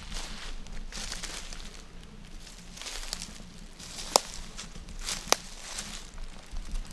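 Footsteps crunching slowly through dry fallen leaves on a woodland floor, with two sharp snaps a little over a second apart about two-thirds of the way in.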